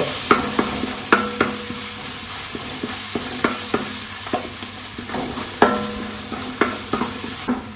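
Crushed garlic and ginger sizzling in hot coconut oil in a large metal pot, stirred with a spatula that scrapes and knocks against the pot at an uneven pace. Some strokes set off a brief ring from the pot.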